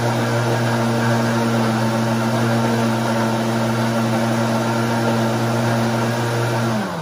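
Countertop blender motor running at a steady speed with a constant hum, blending a leafy green juice of kale, ginger and water. Near the end it is switched off and the motor winds down, its pitch falling.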